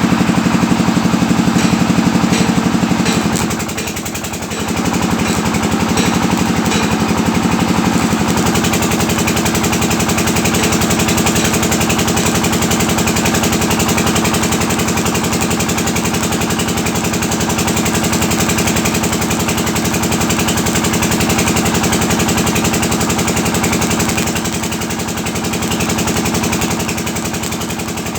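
Electric arc welding on mild-steel pipe and plate: a steady buzzing hum with a dense crackle from the arc. It drops away briefly about four seconds in and again near the end.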